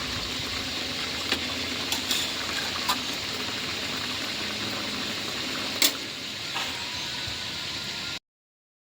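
Pot of Thai green curry with pork and pumpkin bubbling on the heat with a steady hiss, and a few sharp clicks of a utensil against the pot, the loudest about six seconds in. The sound cuts off suddenly near the end.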